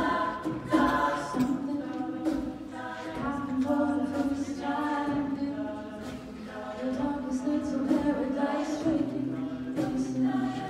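Mixed-voice a cappella group singing: a woman's lead voice over sustained backing chords from the group, with short beatboxed percussion hits.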